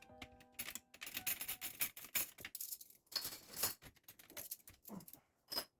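A rapid, irregular run of sharp clicks and clattering, with a few held musical notes in the first second.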